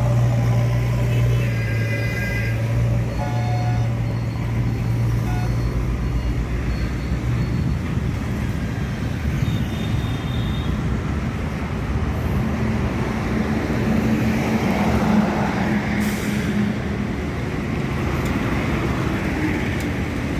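Busy roadside traffic: cars and motorbikes passing with short horn toots, over a steady low engine hum that fades after several seconds. A string of short high beeps sounds in the first half, and a vehicle passes close near the end.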